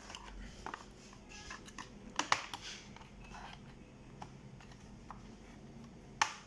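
Scattered clicks and light snaps as the bottom cover of an HP 450 G6 laptop is pried at its edge with a pry tool. The loudest are a close pair about two seconds in and a sharp single click near the end.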